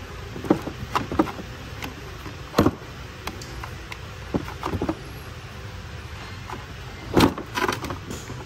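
Scattered plastic clicks and knocks as the 180-degree rotating rear handle of a Ryobi 230 mm angle grinder is turned and the tool is shifted in its plastic case; the motor is not running. The loudest knock comes about seven seconds in.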